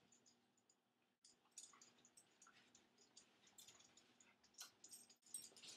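Near silence with faint, scattered light clicks and ticks from dogs moving about. There are a few at first, and they come more often toward the end.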